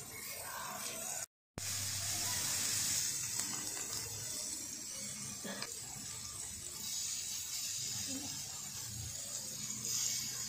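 Marinated paneer cubes sizzling as they shallow-fry in hot oil in a miniature iron kadai, a steady hiss. The sound cuts out for a moment about a second in, and the sizzle is louder after it.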